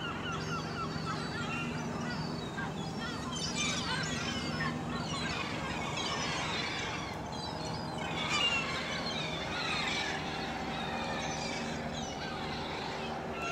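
A flock of gulls calling, many short rising and falling cries overlapping continuously, over a faint steady low hum.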